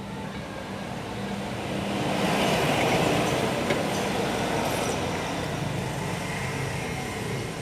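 Motor vehicle noise, an engine with road-like rushing, swelling to its loudest about three seconds in and then easing off.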